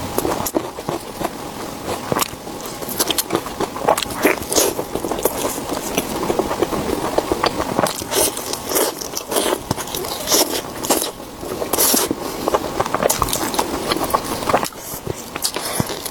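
Close-miked chewing and biting of a tomahawk lamb chop, with irregular wet clicks and crackly crunches throughout.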